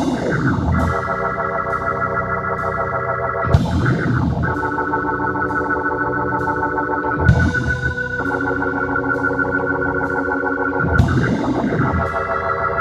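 A live band playing instrumental music, led by sustained electronic organ chords from a combo keyboard with electric guitar and bass. The chords change about every four seconds, and each change is marked by a sharp hit and a brief swoop in pitch.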